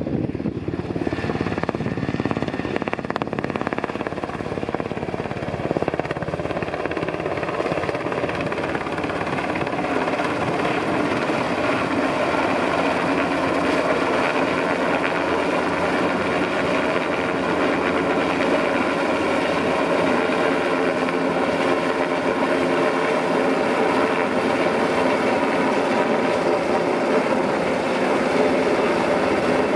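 Sikorsky S-92 search-and-rescue helicopter's rotors and twin turboshaft engines running close by, a dense rotor noise with a steady droning tone that grows slowly louder as it comes in.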